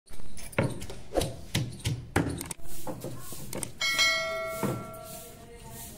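A run of short thumps, then about four seconds in a bell-like ding that rings on and fades: the notification-bell sound effect of a subscribe-button animation.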